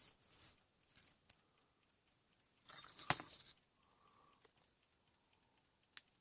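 Faint, brief rustling noises and scattered small clicks, the loudest a sharp click about three seconds in, with a few more ticks near the end.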